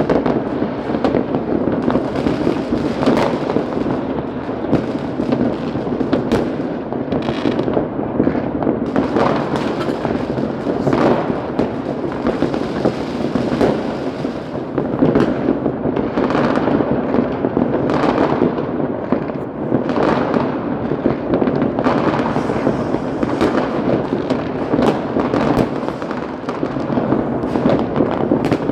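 Fireworks going off continuously: a dense barrage of sharp bangs and crackling over a constant rumble, with no break.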